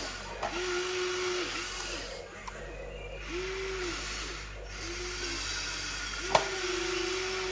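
Small electric motor of an RC excavator whining in repeated short bursts, each dipping in pitch as it starts and stops, as the machine's functions are worked. One sharp knock comes near the end.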